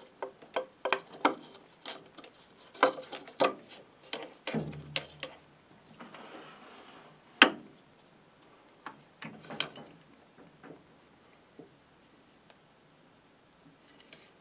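Sharp metallic clicks and knocks of a chuck key and hands working a metal lathe's four-jaw chuck and the part held in it. The clicks come thick and irregular for the first few seconds, then a short rustle, one loud click, and a few scattered clicks before it falls quiet.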